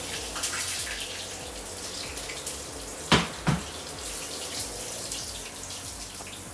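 Breaded chicken thighs sizzling and crackling in hot vegetable oil in a cast iron skillet, a steady hiss dotted with small pops. About halfway through, two loud knocks come half a second apart.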